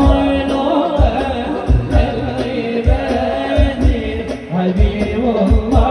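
Sholawat devotional singing by a group of men, amplified through loudspeakers, over a hadrah ensemble of rebana frame drums. Deep drum strokes recur about every half second beneath the wavering sung melody.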